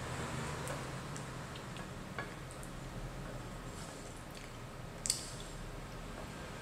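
Someone chewing dumplings, with a few light clicks of wooden chopsticks on a ceramic plate; the sharpest click comes about five seconds in. A steady low hum runs underneath.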